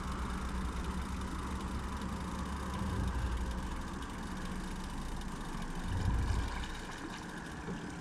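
150-horsepower outboard motor running at low speed, pushing the boat slowly along with a steady low hum. The hum swells briefly about three seconds in and again about six seconds in.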